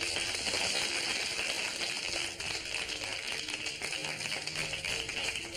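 Many people applauding together: a dense, steady clatter of hand claps.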